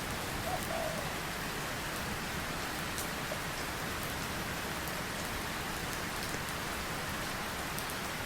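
Steady rain falling, with a few separate drops ticking now and then.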